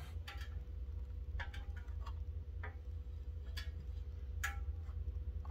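Irregular light clicks and taps as the air cleaner cover is pulled off a Harley-Davidson Milwaukee-Eight engine and the loose parts are handled, over a steady low hum.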